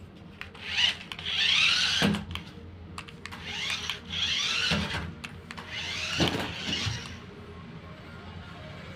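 The small electric motors of a remote-control twisting stunt car whirring in three bursts, their pitch sweeping up and down as it speeds up and slows. A short knock ends each burst.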